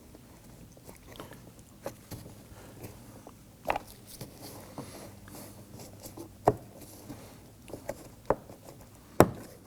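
Pocket screwdriver prying at the small plastic cover inside a Nissan Murano's interior door pull: scattered sharp plastic clicks and light scraping as the cover is worked loose, the loudest click near the end.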